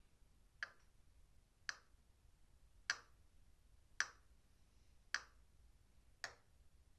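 Six sharp ticks at an even pace, a little over a second apart, over a faint low hum.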